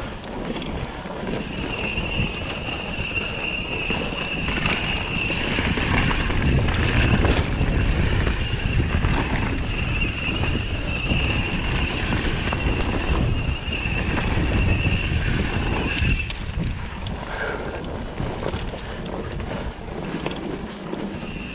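Propain Tyee mountain bike riding down a dirt singletrack: tyres rolling over dirt, stones and leaves, with knocks and rattles from the bike, and wind buffeting the microphone. A steady high whine runs through most of it, drops out about sixteen seconds in, and comes back near the end.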